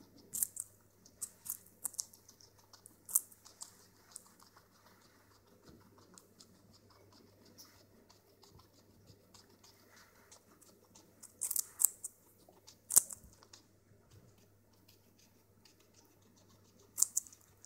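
Guinea pig biting and chewing a hand-held piece of raw carrot: scattered sharp crunches, with a louder cluster about eleven to thirteen seconds in and another near the end.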